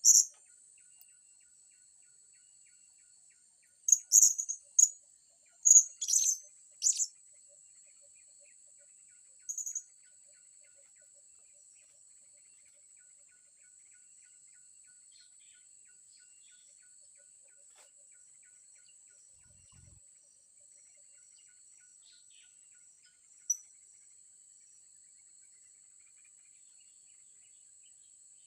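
Short, sharp, high-pitched calls of blue-crowned hanging parrots (serindit): a few clusters in the first ten seconds, then one lone note later. A steady high insect buzz runs underneath.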